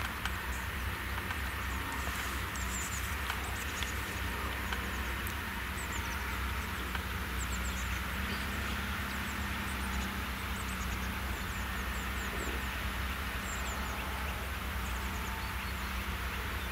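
Steyr tractor's diesel engine running steadily under load as it pulls a three-furrow reversible plough, a constant low drone.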